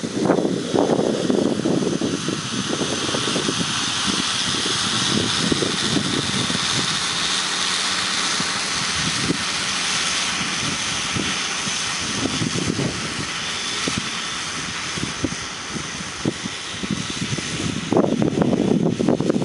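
Multirotor agricultural spraying drone with a 5-litre tank in flight, its propellers making a steady whine that grows stronger in the middle and then eases off. Low, uneven rumbles come at the start and again near the end.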